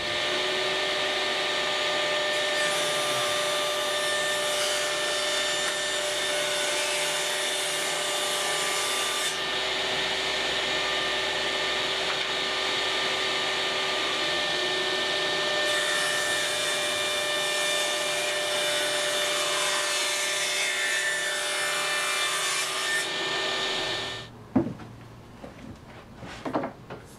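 Table saw running with a steady motor whine while ripping thin hardwood boards. A harsher, hissing cutting noise rises over the whine twice, about 3 to 9 seconds in and again from about 16 to 23 seconds. The saw sound stops abruptly near the end, and a few light knocks follow.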